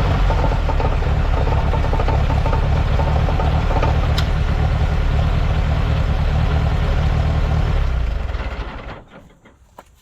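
1948 Allis-Chalmers C tractor's four-cylinder gasoline engine running steadily, then shut off: it dies away about eight to nine seconds in, with a few faint clicks after.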